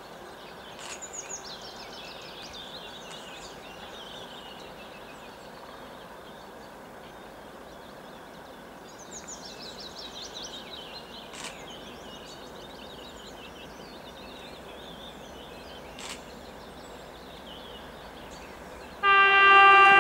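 Birds sing in repeated descending trills over a steady low background noise. About a second before the end, a TEP70BS diesel locomotive's horn starts a loud, steady blast.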